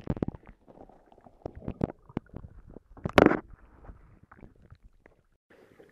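Muffled underwater sound picked up by a camera held under the lake surface: water gurgling and sloshing, broken by irregular knocks and clicks against the camera, with one louder rush of water about three seconds in.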